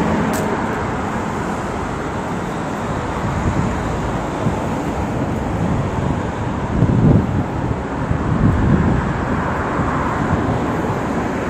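Steady city road traffic noise, with louder low swells about seven and nine seconds in and a single sharp click near the start.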